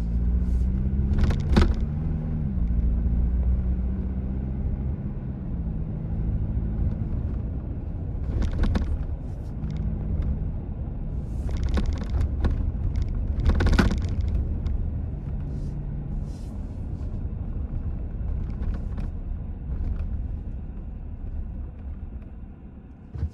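Road and engine noise heard inside a 2025 Toyota Tacoma's cabin while driving: a steady low rumble with engine tone rising and falling. Over it come a few sharp clicks and knocks of interior plastic rattling over bumps, which the owner traces mainly to a plastic screen tray bouncing on the dash.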